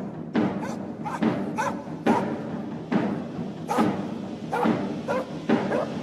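Hip-hop backing track with a heavy beat a little less than a second apart, with dog barks mixed in between the beats.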